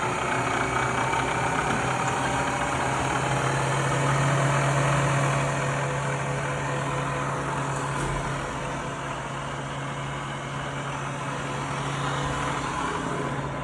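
Bridgeport milling machine running with a steady motor hum and a fainter whine above it, the low hum strongest through the middle.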